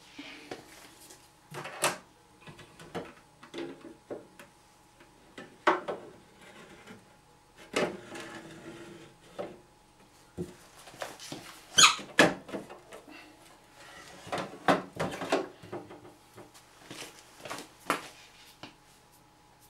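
An old steel railway paraffin lamp being handled and turned on a stainless steel draining board: irregular knocks, clanks and short scrapes of metal, a few of them sharp, the loudest about twelve seconds in.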